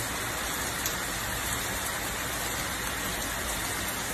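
Heavy rain falling steadily on wet pavement.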